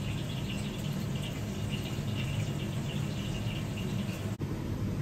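Steady restaurant-kitchen ambience: a low hum with a high, flickering hiss above it, like tempura oil sizzling under the fryer hood. The sound drops out briefly about four seconds in.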